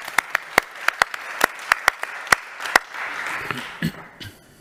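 Audience applauding: loud separate claps over a wash of clapping that fades away near the end.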